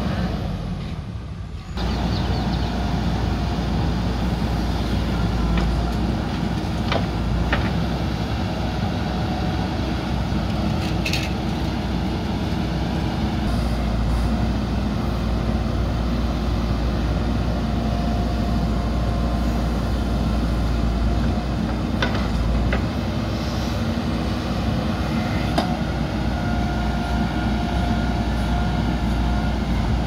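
JCB 3DX backhoe loader's diesel engine running steadily under load as the backhoe digs soil, with a few sharp knocks scattered through.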